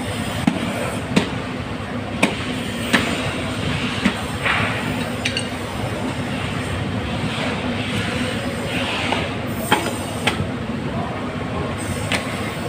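Steady din of a busy fish market floor, with sharp metallic clinks and knocks every second or so.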